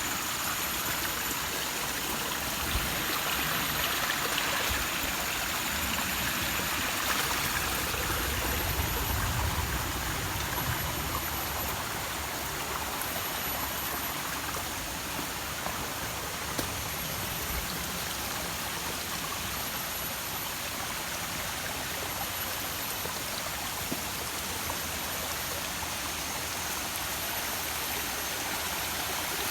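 Running water of a forest stream at the foot of a waterfall: a steady rush with no change through the whole stretch, a faint high repeating tone above it.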